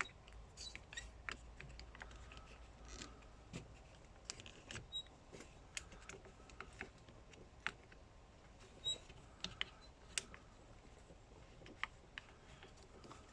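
Irregular light clicks and taps of plastic parts being handled and pressed together: the trigger and handle halves of a trimmer's throttle handle being fitted back on by hand.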